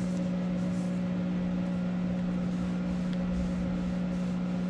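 Monarch 10EE lathe running with a steady, even hum that holds one low pitch with overtones throughout.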